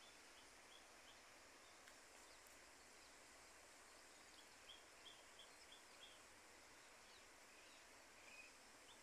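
Very quiet riverside ambience with a faint steady hiss. A small bird's short high chirps come in a quick series at the start and again around the middle, and one lower chirp comes near the end.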